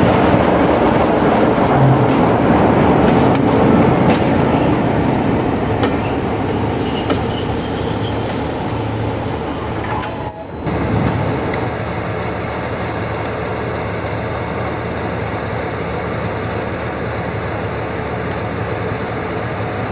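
Passenger coaches rolling past with wheel and rail noise and a brief high wheel squeal near the middle. After an abrupt break, the Class 47 diesel locomotive's twelve-cylinder Sulzer engine runs steadily close by.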